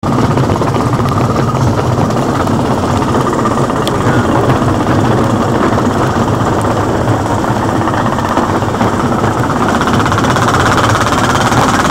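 Small narrow-gauge locomotive's engine running steadily under way, with a loud, continuous rattling clatter from the engine and the train on the track.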